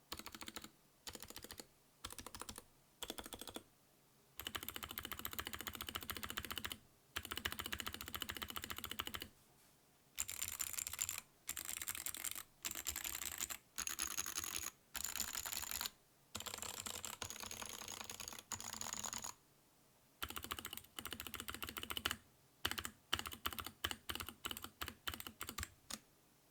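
Mechanical keyboard with Outemu low-profile clicky switches and PBT pudding keycaps being typed on. Keys are pressed rapidly in bursts of clicks separated by short pauses, and near the end in separate quick single strokes.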